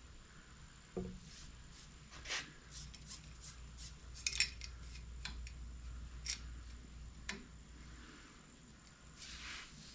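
Steel bicycle brake cable being fed into a greased cable housing: irregular metal scrapes and clicks, with a few sharper ticks scattered through.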